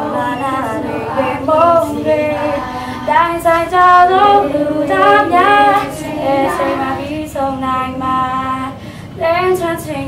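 A group of children singing a song together.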